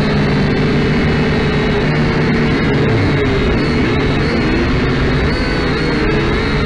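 Syma X5C quadcopter's four small brushed motors and propellers whirring close to the onboard camera's microphone. Several overlapping whining pitches drift up and down together as the motor speeds are adjusted in flight.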